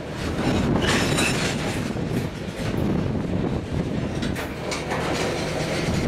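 Steel-wheeled covered hopper cars of a freight train rolling past at close range: a steady rumble of wheels on rail, with scattered clicks as the wheels cross rail joints and a brief high wheel squeal about a second in.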